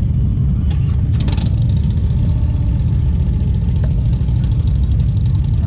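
Motorcycle running on the road, a steady low rumble, with a brief clatter about a second in.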